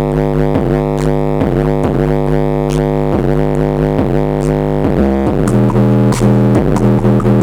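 Electronic synthesizer music played through a Klipsch R-28F tower speaker: sustained chords with regularly repeated plucked notes, changing chord about five seconds in.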